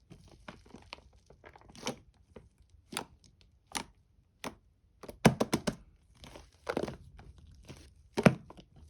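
Slime being squished and pulled apart by hand, giving irregular sticky crackles and pops, with a quick run of them about five seconds in and another loud pop near the end.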